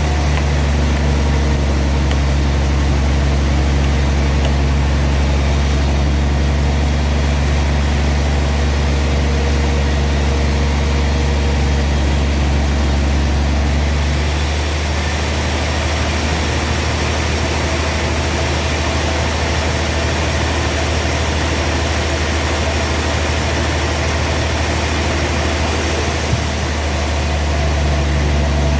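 Sawmill engine running steadily with a deep, even drone. Its tone shifts about halfway through and returns near the end.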